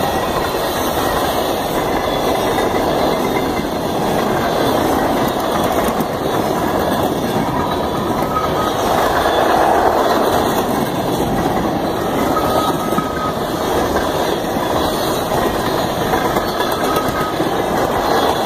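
Freight train cars rolling steadily past: a continuous rumble and rush of steel wheels on rail.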